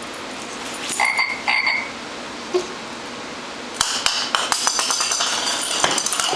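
Babble Ball electronic toy ball playing a recorded croaking animal sound through its small speaker: two short croaks about a second in, then a longer rattling croak of rapid clicks from about four seconds in until near the end.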